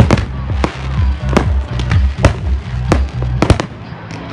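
Aerial firework shells bursting overhead in about seven sharp bangs, roughly one every half second to second. Music with a heavy bass line plays underneath and cuts out near the end.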